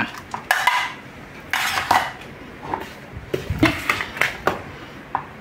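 Plastic laptop power adapter bricks and their cords being handled and set down on a tile floor: several short clatters and rustles.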